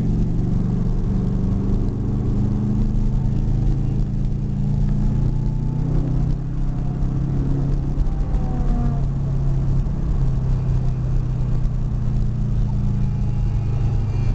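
Car engine and road noise heard from inside the cabin, running steadily at an easy parade-lap pace with no hard revving.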